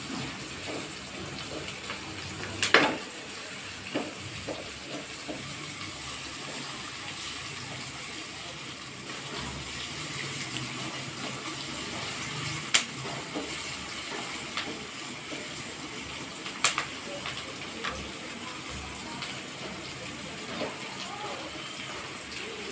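Sliced onions sizzling as they fry in oil and ghee in a steel kadhai, being cooked down toward browning. A silicone spatula stirs them, knocking sharply against the pan three times.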